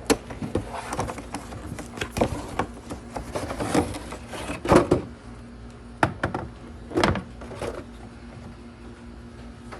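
Plastic clicks, knocks and scraping as the 2022 Kia Telluride's engine air filter housing is unlatched and opened and the filter is handled, with the loudest handling noises about halfway through and near seven seconds in. A faint steady hum runs underneath.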